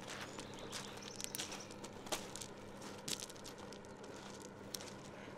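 Footsteps crunching over beach pebbles, the small stones clicking and shifting underfoot about once a second.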